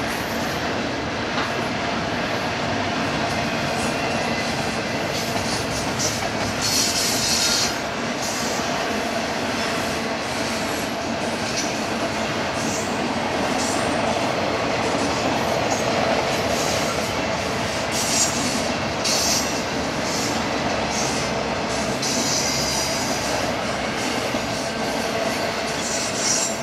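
Freight train cars rolling past: a continuous rumble and rattle of steel wheels on rail, with brief high wheel squeals several times.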